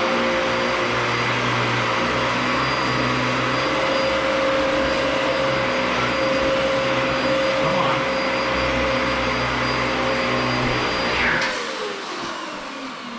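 Dyson DC14 Animal upright vacuum cleaner running steadily at full power with a high motor whine, then switched off about eleven seconds in, its motor winding down.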